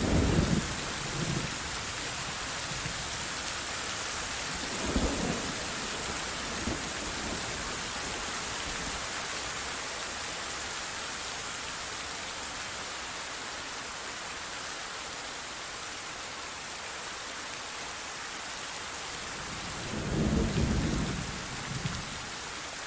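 Thunderstorm with steady heavy rain hissing throughout. Thunder rumbles at the start, again briefly about five seconds in, and once more, louder, near the end.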